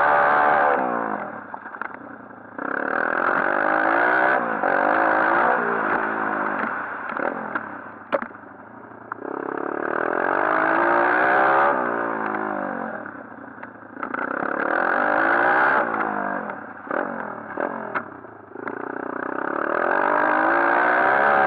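A 140cc pit bike's single-cylinder four-stroke engine being ridden hard round a motocross track, revving up through the gears and then backing off, about five times. Sharp clattering knocks come while it is off the throttle.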